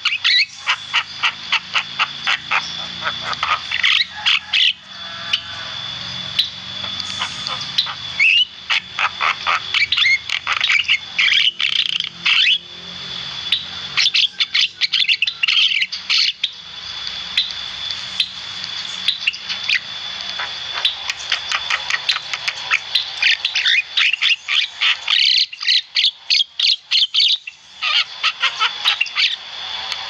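Javan myna (jalak kebo) singing vigorously: long runs of rapid harsh chattering and clicking notes mixed with short squawks, broken by brief pauses, over a faint steady high tone.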